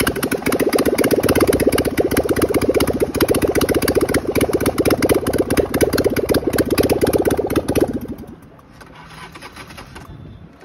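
Harley-Davidson Sportster 1200's V-twin engine running with a fast, even pulsing, then cut off about eight seconds in.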